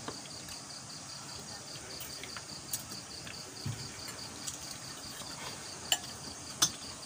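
Crickets chirping in a steady, evenly pulsed high trill, with a few sharp clicks, the loudest two near the end.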